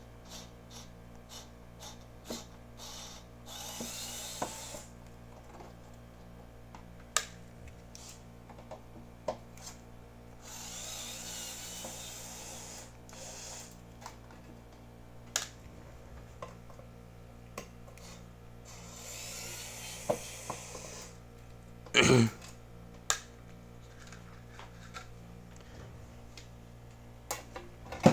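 Taking apart a metal server power-supply case: scattered clicks and small metal taps as screws and parts are handled, with three stretches of hiss-like whirring a second or more long and one louder clunk about two-thirds of the way through. A steady low hum runs underneath.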